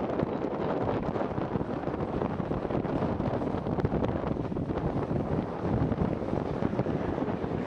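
Wind buffeting the microphone: a loud, steady rush of noise with a low rumble and no clear pitch.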